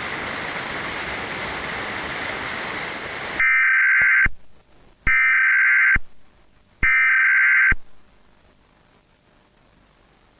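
About three seconds of static hiss, then three identical loud bursts of warbling electronic data tones, each just under a second long and about a second apart: the Emergency Alert System's SAME header that opens an alert. Faint hiss follows.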